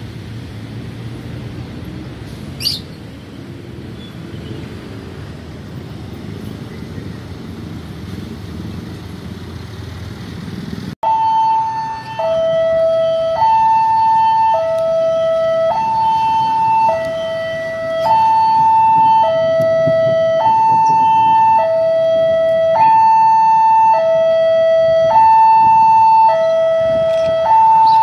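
Railway level-crossing warning alarm sounding two alternating electronic tones, high then low, about a second each, which signals an approaching train. It starts abruptly about a third of the way in; before that there is a steady low rumble with one brief rising chirp.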